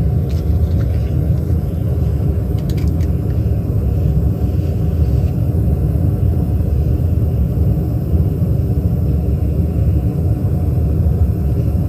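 Handheld butane torch burning steadily with a constant low rushing flame noise as it heats a partial denture framework to red heat for soldering a wrought wire.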